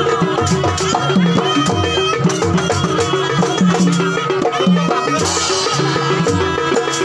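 Live jaranan ensemble music: Javanese drums and percussion beating a steady pattern under sustained pitched tones, with a brighter hiss joining about five seconds in.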